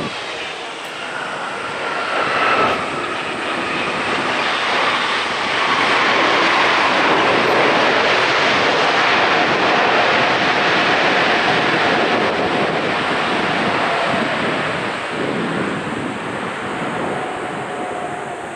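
Jet airliner engines passing close by. The noise swells over the first few seconds, stays loud through the middle, then fades. A whining tone slides down in pitch in the first few seconds.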